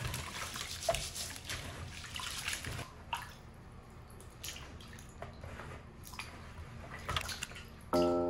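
Water running and splashing, with small irregular clicks and knocks. Music comes in just before the end.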